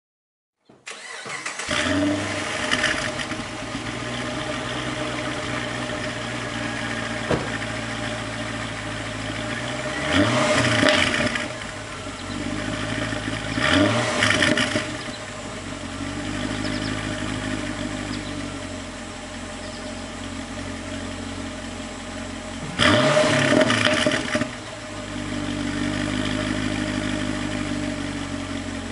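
A Pontiac G8 GXP's 6.2-litre LS3 V8 heard at its quad exhaust tips. It starts up about a second in, settles into a steady idle, and is blipped three times, each rev rising sharply and dropping back to idle.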